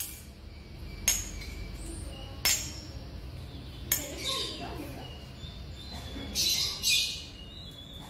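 Three sharp clinks, like metal spoons knocking on a tiled floor, about a second and a half apart, then a few short voice sounds in the second half.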